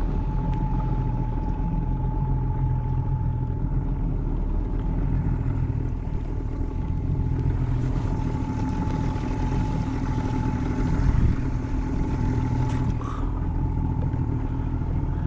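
Yamaha 50 outboard motor on a small boat running steadily, a low hum with a thin steady whine above it.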